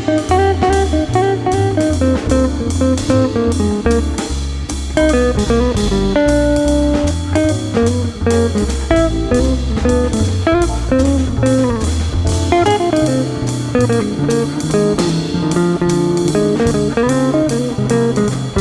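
Background music: an instrumental guitar break in a bluesy rock song, with electric guitar lead lines over bass and a steady beat.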